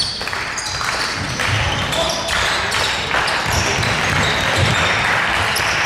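Basketball game in a sports hall: the ball bouncing on the court amid indistinct shouts and chatter from players and spectators, with short squeaks scattered through.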